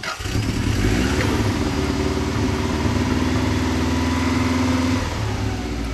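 Subaru Impreza WRX GC8's flat-four engine running at idle after half a year standing, now that it has been refuelled; its level and pitch drop slightly about five seconds in.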